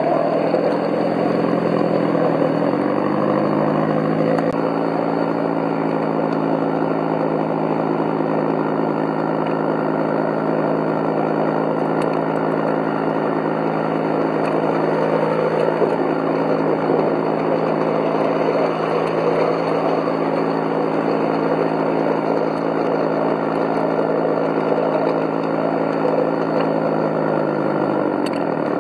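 Simulated diesel engine sound from the electric model railbus's onboard sound unit. The engine note rises about two or three seconds in as it throttles up, holds steady, and drops back toward idle near the end, over the running noise of the wheels on the track.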